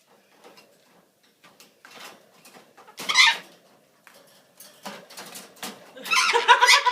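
Pet bird calling as it plays with a toy: scattered faint ticks, one loud harsh squawk about three seconds in, then a louder run of repeated pitched chattering calls near the end.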